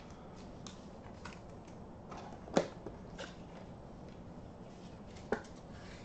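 Trading cards in plastic sleeves and wrappers being handled: faint rustling with a few light clicks, the sharpest about two and a half seconds in and another near the end.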